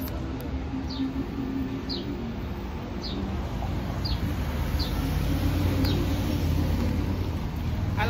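Street traffic rumbling, growing louder in the second half, with a bird giving a short, falling chirp about once a second.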